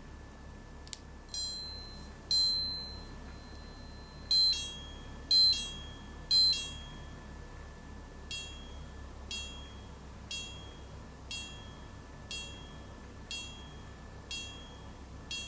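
Minute repeater of a Citizen Campanola Grand Complication quartz watch striking the time after a click of its pusher. It gives about one chime a second: two higher single strikes, three two-tone strikes, then a run of lower single strikes that is still going at the end.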